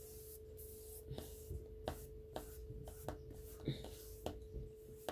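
Flat paintbrush scrubbing gesso onto a stretched painting canvas: soft, scratchy back-and-forth strokes with a few light ticks, roughly two a second, over a faint steady hum.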